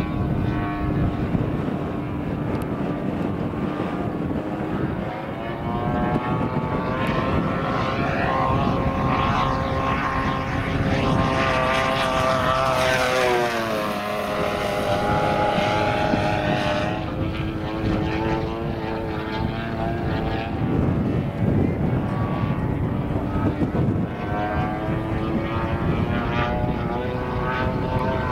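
The 3W 75cc two-stroke petrol engine of a large-scale RC Spitfire in flight, running steadily with propeller drone. About 13 seconds in, its pitch drops sharply as the model makes a low, fast pass.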